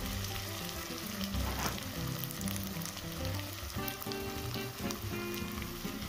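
Pot of brown lentils and onion sizzling in hot oil with freshly poured boiling water, a steady hiss as the water comes to the boil.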